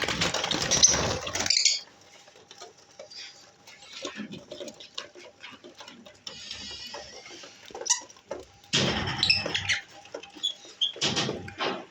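Lovebirds chirping and twittering in short high calls, broken by three loud bursts of rustling noise: at the start, about nine seconds in, and about eleven seconds in.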